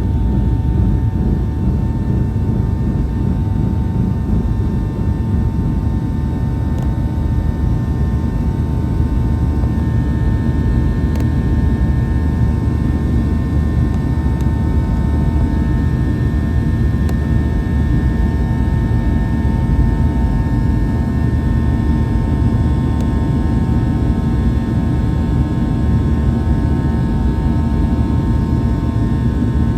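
Cabin noise of a Boeing 737-800's CFM56-7B turbofan engines: a steady, loud roar with a thin, constant whine from the engine fans running through it.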